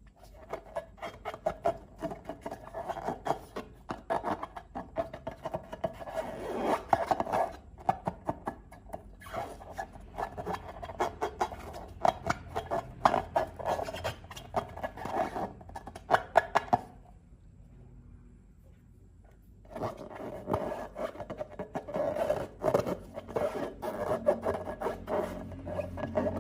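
Slime being worked by hand: rapid, sticky crackling and clicking, pausing for a couple of seconds about two-thirds in before starting again.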